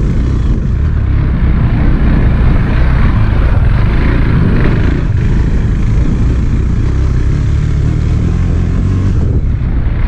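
KTM 390 Duke's single-cylinder engine running steadily as the bike rides slowly over a rough dirt track, with wind and tyre noise on a helmet-mounted camera's microphone.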